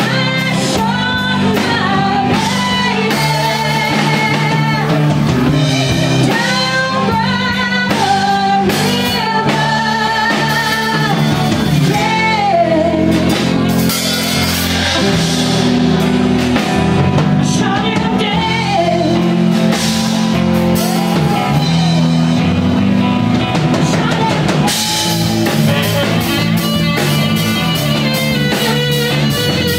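Live rock band: a woman sings lead into a microphone over a drum kit and electric guitar.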